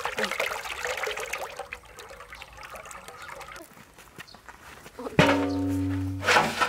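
Liquid pouring from a plastic jug through a strainer into a large wok of broth, a splashing trickle that fades after about two seconds. About five seconds in, loud music comes in with a long low held note.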